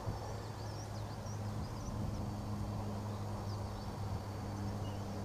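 Countryside ambience: small birds chirping in short, high calls over a steady, low engine hum.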